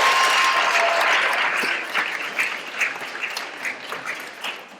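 Audience applauding: a dense round of clapping that thins into scattered separate claps and dies away near the end.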